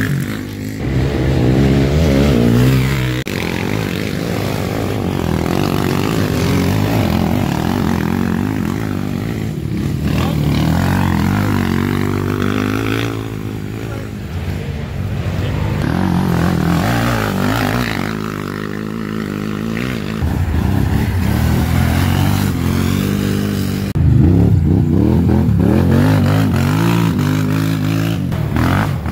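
Racing quad (ATV) engines revving and passing by, the pitch rising and falling as the riders accelerate and back off, with a few abrupt jumps in the sound.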